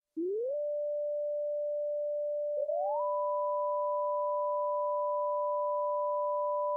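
Two pure electronic tones in a soundtrack. The first slides up about an octave and holds steady. A couple of seconds later a second, higher tone slides up about an octave and holds beside it, so the two sound together.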